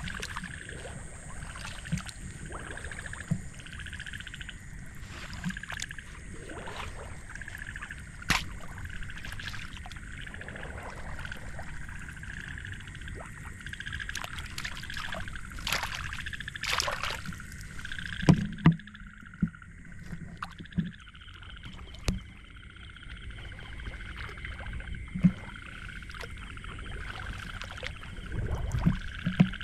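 Night chorus of frogs and insects: a steady pulsing call and a thin high continuous trill. Water splashes and a few sharp knocks stand out over it, loudest in the second half.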